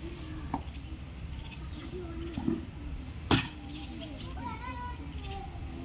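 Outdoor ambience of faint distant voices or calls over a low wind rumble. It is broken by a small click about half a second in and one sharp knock a little over three seconds in, the loudest sound.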